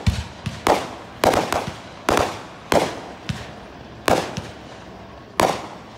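Fireworks bursting: about ten sharp bangs in six seconds, unevenly spaced, each trailing off in a short echo.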